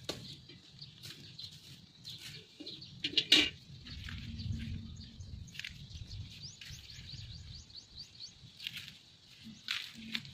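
A small bird calls a fast trill of rising chirps, about six a second, from just past the middle for a couple of seconds. Under it, corn plants rustle and crack as ears are picked from the stalks, the loudest a sharp crack about three seconds in, over a low rumble.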